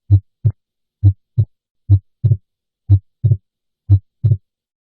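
Heart sound recording of a normal heart beating at about one beat a second, each beat a lub-dub pair of S1 and S2. S2 is single in the first beat, and from about two seconds in it splits into two close components on inspiration: physiologic splitting of the second heart sound, a normal finding.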